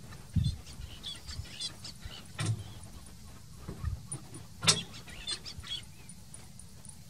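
Birds chirping in short, high notes, with a few low thumps and two sharp snaps; the loudest snap comes about two-thirds of the way in.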